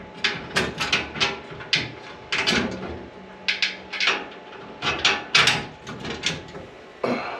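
Hand tools and bolts working on a metal truck bed rack's cross piece: a quick, uneven run of short, sharp metallic strokes, about two a second, with a brief ringing tone partway through as the bolts are run in just enough to hold it.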